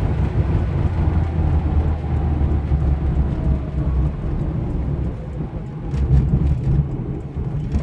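Cabin noise of a 1977 Honda Civic CVCC hatchback on the move: a steady low engine and road rumble as the car slows from highway speed.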